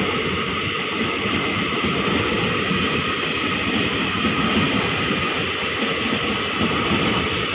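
Indian Railways express train's passenger coaches passing at speed: a loud, steady rushing rumble of wheels on rail and moving air.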